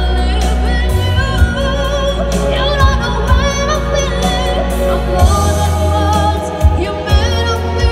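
A boy singing into a microphone over amplified musical accompaniment. His held notes waver with vibrato over a heavy bass line and regular drum hits.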